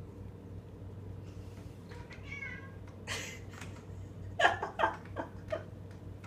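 Domestic cat meowing: a faint call or two first, then four short, louder meows in quick succession near the end.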